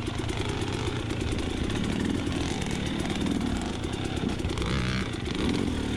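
Two-stroke dirt bike engine running steadily at low revs, a fast pulsing exhaust note.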